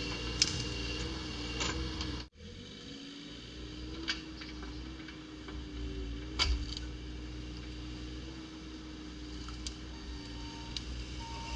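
Bobcat E35 mini excavator's diesel engine running steadily under work, with a few sharp knocks as it handles the uprooted pine, the loudest about six seconds in. Two short beeps come near the end.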